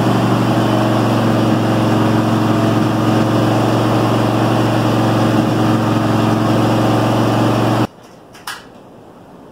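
Montgomery Ward garden tractor's small engine running steadily at a fast idle, then cutting off suddenly about eight seconds in, followed by a single click.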